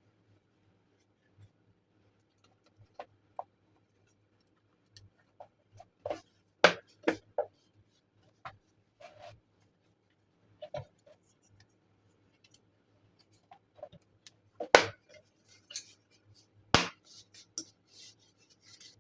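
Hands working on a small plastic Bluetooth speaker that is being taken apart: irregular sharp clicks and knocks of plastic parts and small tools, with some scratching and rubbing between them. The loudest knocks come in a quick cluster about seven seconds in and again near fifteen and seventeen seconds.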